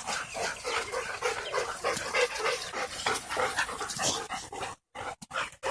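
A dog panting hard in a quick, even rhythm, with the sound cutting out briefly a few times near the end.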